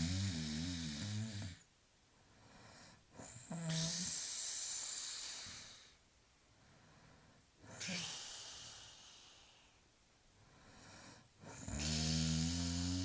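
A person snoring heavily. Loud, low pitched snores come near the start and again near the end, with long hissing breaths between them, one breath cycle about every four seconds.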